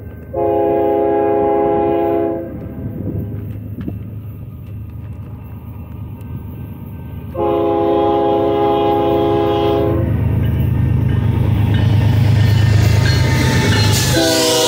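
Multi-note air horn of a BNSF GE ES44DC diesel locomotive leading a freight train. It sounds two long blasts a few seconds apart and starts a third near the end. Between and after the blasts, the locomotive's diesel engine and the train's wheels grow louder as it arrives.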